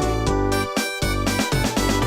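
Polyphonic Fly X3 mobile-phone ringtone played through Yamaha MidRadio's synthesizer: a bright synth melody and chords over a bass line with regular drum hits.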